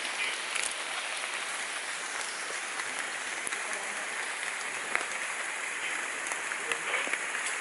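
Steady, even hiss of tropical forest ambience with a few faint ticks, heard while the hikers stand still listening for elephants nearby; no elephant call stands out.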